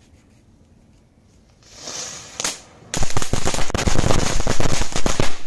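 A short hiss of a burning fuse, then a large 2-inch chitput firecracker goes off about three seconds in as a fast, dense string of crackling pops lasting the last two and a half seconds.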